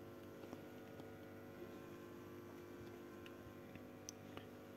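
Near silence: a faint steady hum of room tone with a few soft, scattered ticks.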